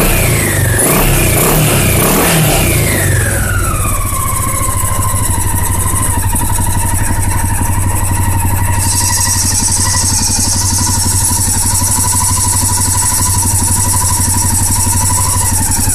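Honda XRV750 Africa Twin's V-twin engine, with freshly overhauled carburettors, blipped a few times and then settling to a steady idle from about four seconds in. A high hiss joins the idle about nine seconds in.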